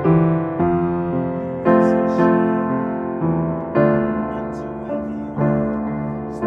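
Solo piano playing slow sustained chords, one struck about every two seconds and each left to ring and fade.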